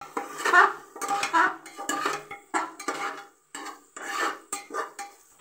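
Metal spatula scraping and clattering around the inside of a pressure cooker, stirring a masala of onions and spices frying in oil, in uneven strokes about two a second.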